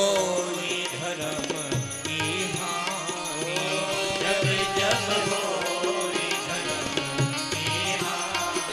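Indian devotional music: a gliding melody line over a steady drum beat.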